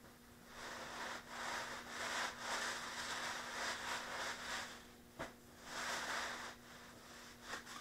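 Cloth rag rubbing back and forth on a concrete floor: a long stretch of wiping, a single knock about five seconds in, then a shorter stretch of rubbing.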